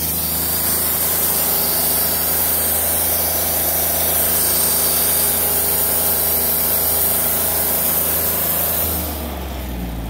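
Wood-Mizer LT40 band sawmill running under load, its engine holding a steady note while the band blade cuts through an eastern red cedar log with a steady high hiss. About nine seconds in the hiss stops and the engine note drops as the cut ends.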